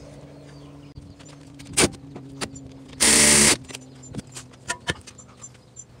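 Metal tool clinks at the rear brake caliper, then about three seconds in a loud, even half-second burst from a power tool, fitting the caliper bolts being run down.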